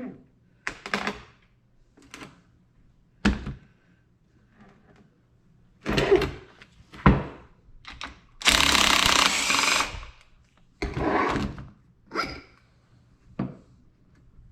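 Workshop tool sounds while a motorcycle fork is taken apart: a string of separate clunks, knocks and scrapes, with one loud steady burst lasting about a second and a half near the middle.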